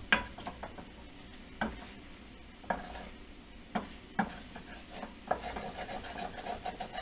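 Wooden spoon stirring and scraping scrambled eggs around a frying pan, knocking against the pan a handful of times at irregular intervals, over a faint sizzle of the eggs cooking in bacon grease.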